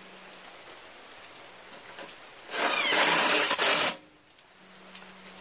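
Cordless power driver with a socket spinning up with a brief rising whine and running for about a second and a half, driving a 3/8 bolt into the mower's engine cover.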